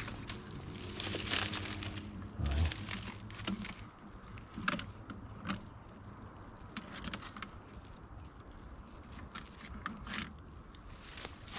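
Scattered light clicks, taps and rustles of a wooden beehive box being handled and wire being wrapped around it.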